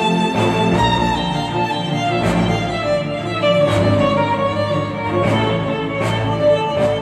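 Music with violin and a string section over a steady beat of percussive hits, played back through Monitor Audio Bronze 100 bookshelf speakers driven by a Cambridge Audio CXA81 integrated amplifier.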